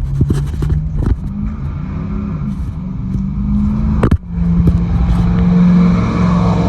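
A motor vehicle engine running close by, its pitch shifting up and down, then holding steady and louder after a sharp knock about four seconds in.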